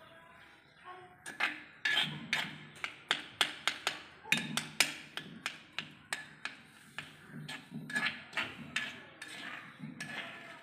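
A knife chopping food inside a rough-bottomed clay bowl: irregular sharp knocks of the blade against the bowl, about two or three a second, starting a little over a second in.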